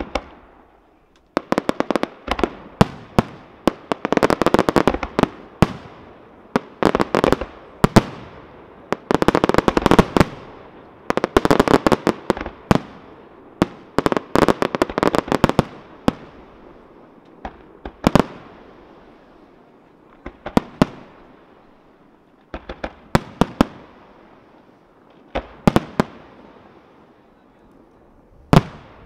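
Aerial firework shells bursting in a display. Single sharp bangs alternate with dense, rapid volleys of reports, with a few short lulls between salvos.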